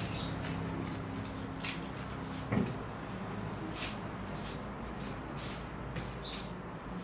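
Dry onion skins crackling and tearing as onions are peeled by hand, with many short papery crackles and one louder knock about two and a half seconds in.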